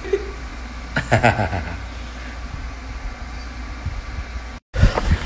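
A short bit of voice, then a steady low room hum. Near the end, after an abrupt cut, the thudding footfalls of someone running on pavement start.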